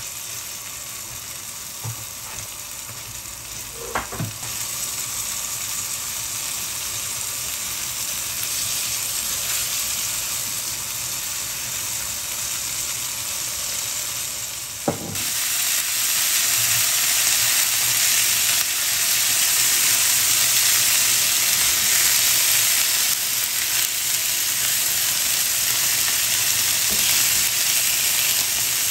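Flour-dredged cod pieces frying in oil on a flat griddle: a steady sizzle that steps up louder about four seconds in and again about fifteen seconds in.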